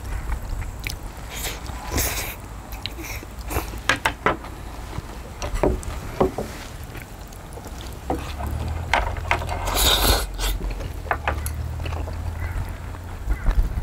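Close-up eating sounds of cold spicy noodles and raw beef: slurping, chewing, and short clicks of chopsticks and metal tongs against bowls, with a louder slurp about ten seconds in. A low rumble runs underneath.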